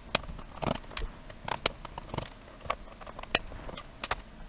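Irregular sharp clicks and taps from a screwdriver and small screws being worked out of a plastic radio cabinet and handled.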